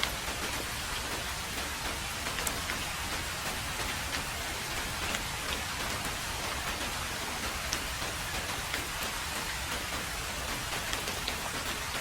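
Heavy rain falling steadily on a road: a dense, even hiss with scattered sharper ticks of individual drops.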